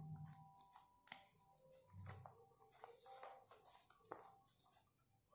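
Faint rustling and crinkling of folded paper being opened out and handled, with a few small clicks and taps, the sharpest about a second in.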